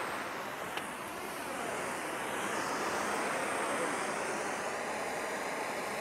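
Steady rushing hiss of a handheld gas torch flame and a burning anaar (flower-pot firework) spraying sparks on a slowly turning fan blade. The tone sweeps slowly up and down as the source moves.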